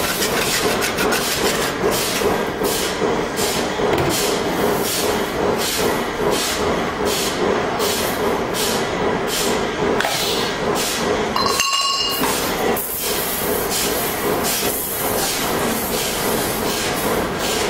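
Steady workshop machinery noise: a loud hiss over a low hum, pulsing regularly a few times a second, broken briefly about two-thirds of the way through.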